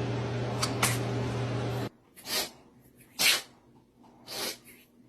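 A pet sneezing. First comes one sharp sneeze over a steady low hum. After an abrupt cut, a run of short sneezes about a second apart.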